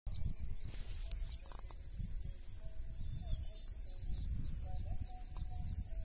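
Rural field ambience: wind buffeting the microphone, a steady high-pitched insect drone, and faint short bird calls now and then.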